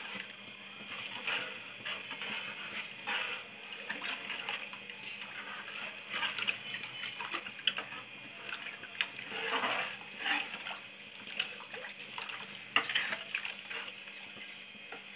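Metal ladle stirring thin kadhi, a gram-flour and buttermilk mixture, in a metal pot: irregular sloshing and swishing of the liquid, with now and then a sharp clink of the ladle against the pot.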